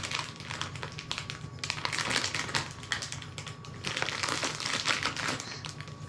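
Crinkly plastic wrapper around a toy figure being crumpled and pulled open by hand: a dense run of sharp crackles, busiest about two seconds in and again around four to five seconds in.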